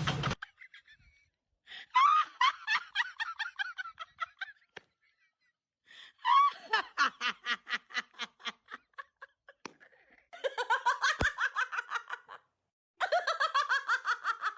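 Hearty laughter in four separate fits, each a quick run of ha-ha pulses that falls in pitch as it goes.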